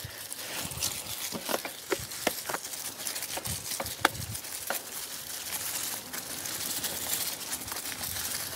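Mountain bike tyres rolling over dry fallen leaves and dirt trail: a steady rustling hiss broken by many sharp crackles and clicks, thickest in the first few seconds.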